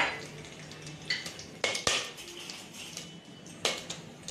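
Whole spices sizzling in hot ghee in a stainless steel pressure cooker, with a few sharp clinks of a metal spoon against the pot.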